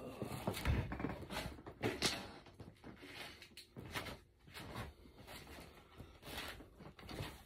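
Scattered small clicks, knocks and rustles of someone handling and moving things while rummaging for an item, with a dull thump a little under a second in.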